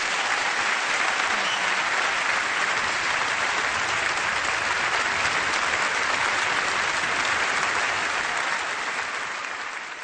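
Large audience applauding steadily, fading away over the last couple of seconds.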